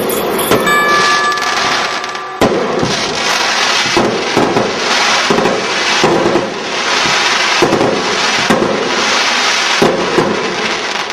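Fireworks crackling, a dense run of many small, irregular bangs and pops that overlap one another.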